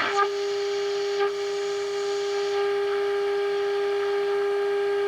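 The 1948 Emerson AA5 radio's speaker sounding a steady single-pitched test tone, the signal generator's modulated signal being received as the set is aligned. Two short clicks sound near the start and about a second in.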